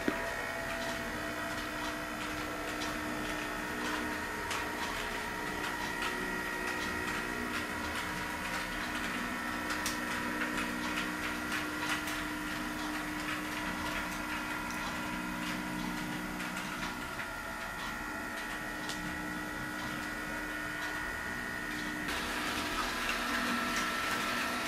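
A steady mechanical hum made of several steady tones, with scattered faint clicks. It brightens slightly near the end.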